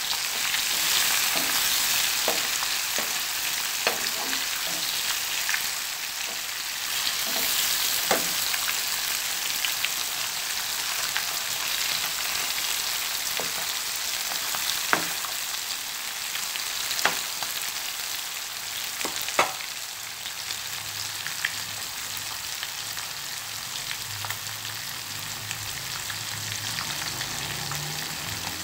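Fish steaks shallow-frying in hot oil in a nonstick pan: a steady sizzle with scattered sharp pops, easing off a little in the second half.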